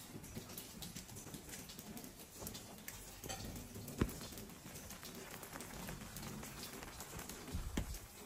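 Footsteps on wet stone and brick paving, with light rain pattering and dripping around them. A single sharp tap about four seconds in is the loudest sound.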